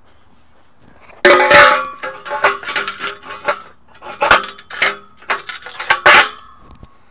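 Metal carport arch tubes clanging against the paving stones and against each other as they are laid down and fitted end to end. A loud clang comes about a second in, followed by a run of knocks and clinks, each ringing briefly.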